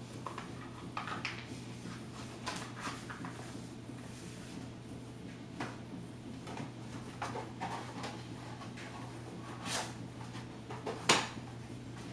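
Quiet room tone with a low steady hum, broken by scattered small clicks and knocks. The sharpest knock comes about eleven seconds in.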